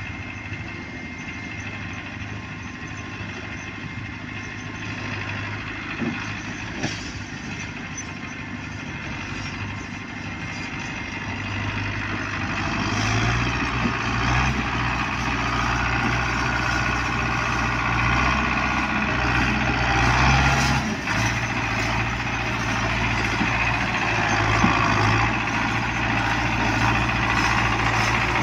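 Tractor diesel engine labouring under a heavy trolley load of sugarcane, a steady low drone that grows louder as it comes closer. It breaks off for a moment about two-thirds of the way through, then carries on.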